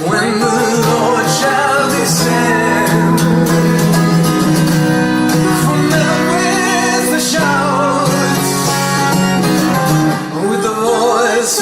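A song performed live: singing with vibrato over guitar accompaniment and sustained low notes.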